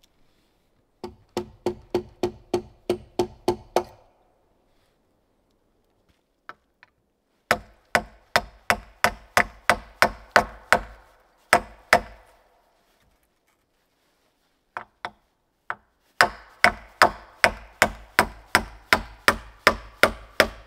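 A hand tool striking wood in quick runs of sharp blows, about four a second: three runs with short pauses between them.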